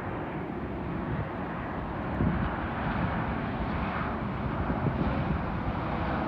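Jet airliner on final approach, its engines a steady rushing rumble that grows louder about two seconds in as the plane comes nearer.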